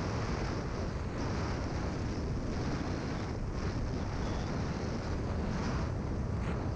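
Wind buffeting the microphone during a snowboard descent, a steady low rumble, with the hiss of the snowboard sliding over the snow swelling and fading.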